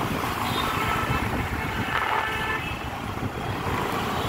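Road noise from a moving vehicle in city traffic: a steady low rumble of engine, tyres and wind, with brief faint pitched sounds about two seconds in.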